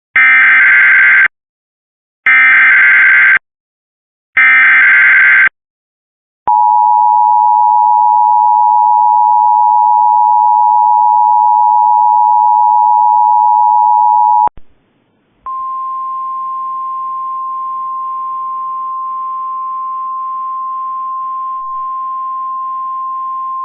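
Emergency Alert System tones. First come three one-second screeching bursts of the SAME digital header. Then about eight seconds of the two-tone EAS attention signal, and after a short gap a single steady high tone of about 1,050 Hz: the NOAA Weather Radio warning alarm tone carried in the relayed audio, with faint hiss beneath it.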